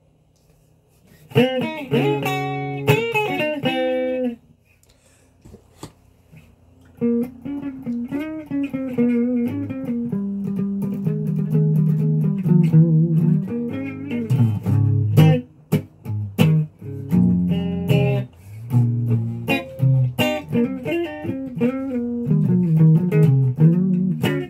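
SG-style electric guitar being played in melodic phrases. A short phrase comes after about a second of quiet, then a pause of about two seconds, then longer, near-continuous playing with one brief break about two-thirds of the way through.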